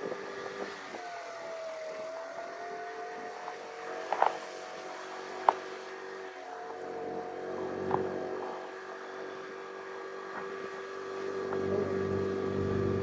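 Motor scooter running under way with a steady hum, growing louder near the end, with a few sharp knocks, the loudest about five and a half seconds in.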